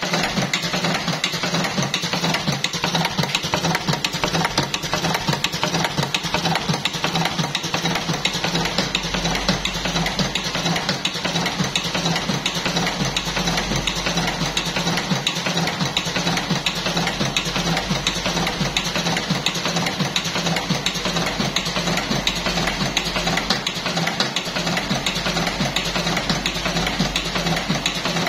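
Buffalo V5S electric cigarette filling machine running continuously: a steady motor hum under a rapid mechanical clatter, with a deeper rumble joining about eight seconds in.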